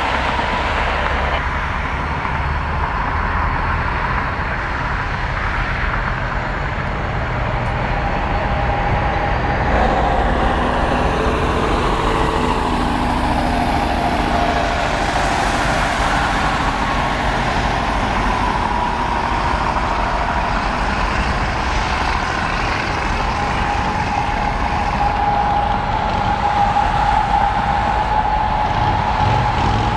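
Norfolk Southern office car train's passenger cars rolling slowly through the rail yard: a steady rumble with a sustained tone over it.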